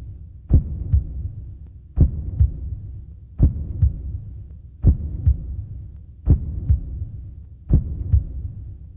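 Slow heartbeat, each beat a strong low thump followed by a softer one, repeating about every one and a half seconds over a low steady hum.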